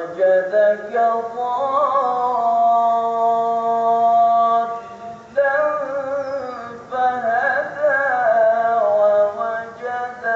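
A man reciting the Quran in Arabic in a melodic tilawat style, with ornamented phrases and a long held note, pausing briefly for breath about five seconds in.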